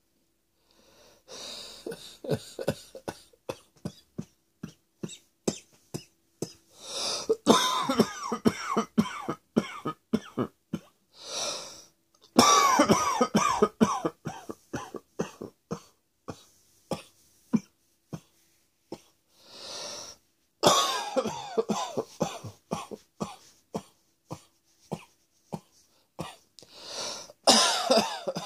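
A person coughing over and over in long fits: runs of many short, sharp coughs, broken by four longer, strained bouts where the voice comes through.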